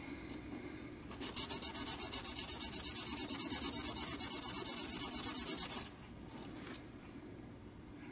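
A small metal H.O. slot car pickup shoe being rubbed back and forth on sandpaper on a flat sanding block: quick, even scratchy strokes, about seven a second. The strokes start about a second in and stop after some four and a half seconds. The new shoe is being sanded flat.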